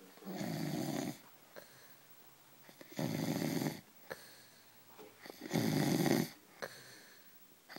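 Snoring in a slow, even rhythm: three snores, each under a second long, about two and a half seconds apart.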